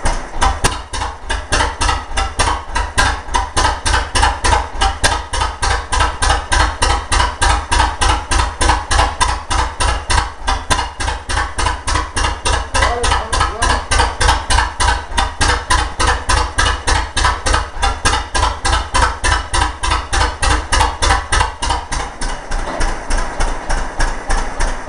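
Palmer 12 hp two-cylinder marine engine running steadily at a slow idle, its exhaust firing in even beats about four a second. Near the end the deepest part of each beat fades.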